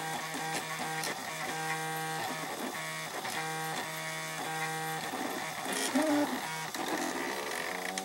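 3D printer's stepper motors whining in steady, musical tones that jump in pitch every fraction of a second as the print head makes short moves, with a louder stretch about six seconds in.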